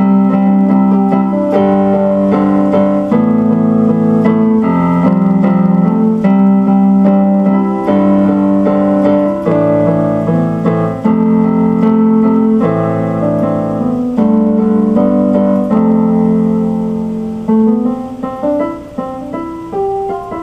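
Electric keyboard played as instrumental music: slow, sustained chords that change every second or two, turning to shorter, quieter notes near the end.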